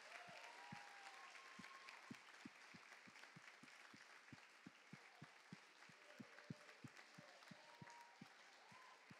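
Faint audience applause after a dance number, with a steady low thump about three times a second under it and a few faint cheers.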